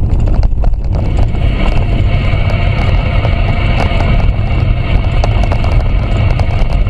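Static hiss from a 40-channel FM CB radio's speaker with the squelch open, coming in about a second in, over the low rumble of the car on the move. The channel is empty: no stations are being heard.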